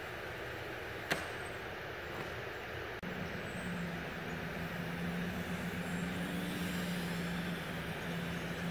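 A sharp click about a second in, then, from about three seconds in, the steady buzz of a small electric RC airplane's motor and propeller (FliteTest Power Pack A) under power, its pitch shifting slightly as the plane flies.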